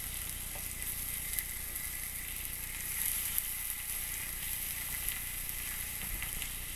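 Steaks sizzling on a ribbed cast iron grill pan, a steady hiss with faint scattered crackles.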